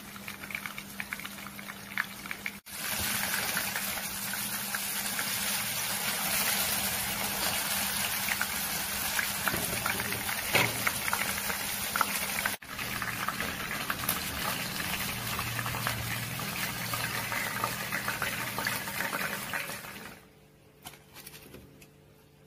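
Hot oil sizzling and crackling around a marinated chicken leg shallow-frying in a pan: a dense, steady sizzle with scattered sharp pops, louder after about three seconds. The sizzle stops about twenty seconds in.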